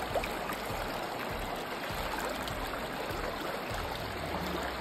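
Shallow, clear mountain river running over stones and pebbles: a steady rush of flowing water.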